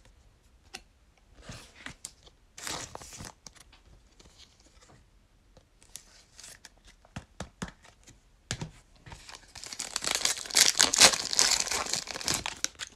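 A foil trading-card pack of 2021 Donruss Football is torn open, with loud crinkling of the wrapper for about three seconds near the end. Before that come scattered light rustles and clicks of handling.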